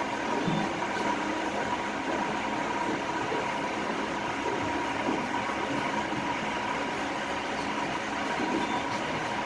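Glass-bottom boat's engine running with a steady drone and water moving against the hull, heard from on board, with a thin high hum that holds steady.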